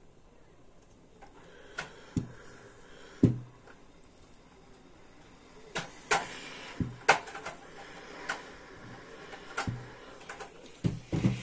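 Steam iron being lifted and set down on a padded table as it presses a seam to fuse double-sided fusible tape: irregular knocks and clicks, some with a dull thud, and a light rustle of fabric.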